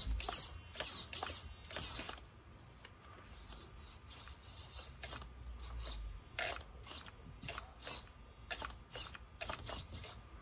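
Reefs RC 444 steering servo whining in short, high-pitched chirps as it swings the RC crawler's front wheels back and forth. The chirps come about two or three a second for the first two seconds, then fade and return more sparsely.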